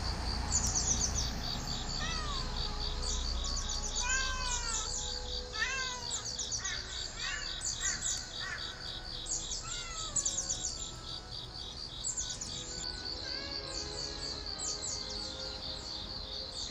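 Birds chirping in short, repeated falling calls over a steady, rapidly pulsing insect trill.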